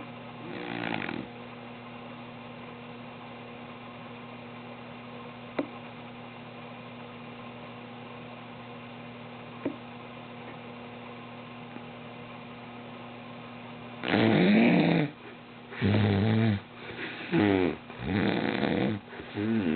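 A man snoring loudly in his sleep: one snore at the start, then a long stretch of only a steady low hum with two faint clicks, before loud snores start again about fourteen seconds in, coming every second or so.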